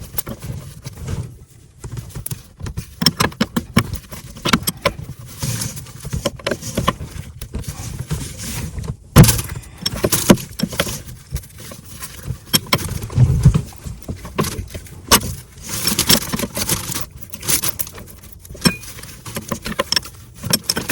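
Irregular metallic clinks and knocks of hand tools working on chain plate bolts, as a bolt is worked loose.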